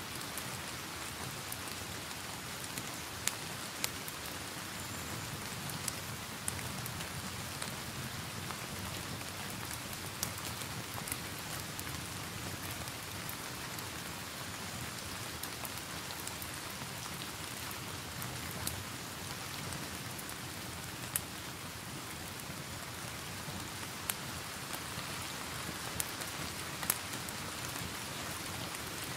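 Steady rain hiss mixed with the crackle of a fireplace fire: scattered sharp pops every few seconds over the even patter of rain.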